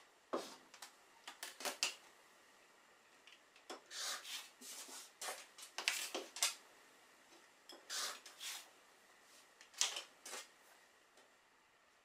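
Rotary cutter rolling through cotton fabric on a self-healing cutting mat beside an acrylic ruler, with the ruler and fabric sliding and rustling on the mat. The sound comes as short scraping strokes with pauses between, the longest about four to six seconds in.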